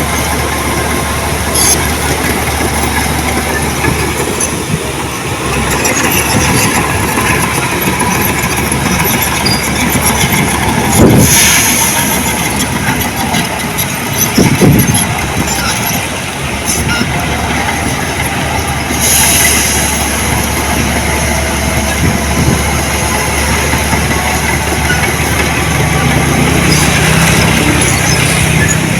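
Heavy diesel earthmoving machinery running steadily, with a few louder clanks and surges, the loudest about eleven seconds in; a new engine note comes in near the end.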